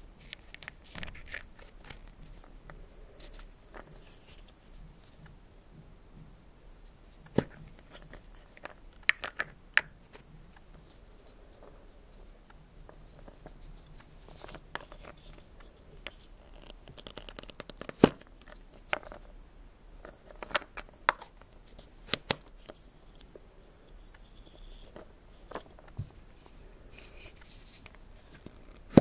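Hand-painted wooden nesting doll halves being twisted apart, fitted together and set down: scattered sharp wooden clicks and knocks, the loudest about halfway through, with light scraping and rubbing of the lacquered wood in between.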